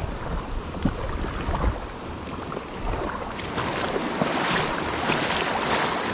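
Shallow creek riffle rushing and splashing over rocks around a kayak, growing louder and hissier from about halfway through. A low wind rumble on the microphone sits under it in the first couple of seconds.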